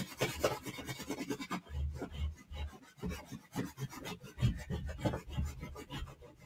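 A stick of yellow chalk scribbling rapidly back and forth on a black plastic tuff tray, colouring in a taped shape: a scratchy rasp of many quick strokes, sharpest in the first second or two, with a few dull low bumps as the tray is knocked.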